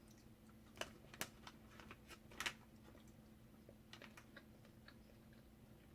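Faint scattered clicks and taps of dried fruit pieces and a plastic snack tray being handled and sorted by hand, a few louder ones in the first half.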